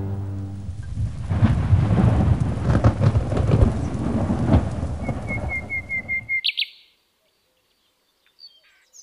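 Rolling thunder over a steady hiss of rain, cut off abruptly about six and a half seconds in. Just before the cut a bird gives a quick run of about six chirps and then one rising chirp. A few faint bird notes follow near the end.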